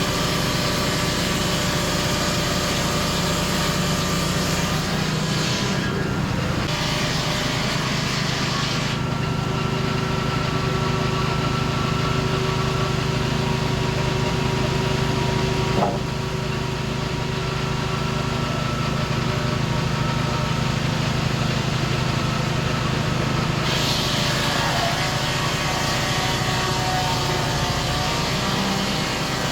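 Portable sawmill's engine running steadily, its upper sound thinning and returning a few times; a single knock about halfway through.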